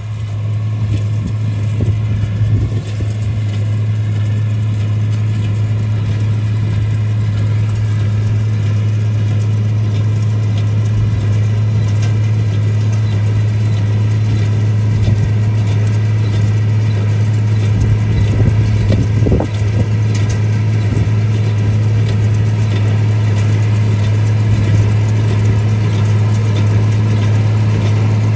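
Tractor engine running at a steady speed: a constant low hum that holds one pitch.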